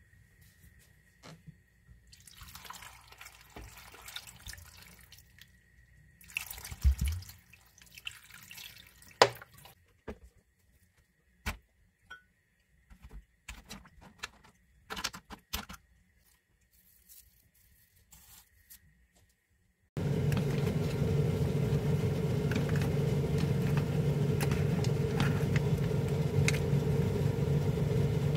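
Water poured into a frying pan full of mussels, in two splashing pours, with sharp knocks as onion and vegetables go into the pan and a faint steady high whine underneath. About two-thirds of the way in, a loud steady hum and hiss cuts in abruptly as the pan cooks at a boil.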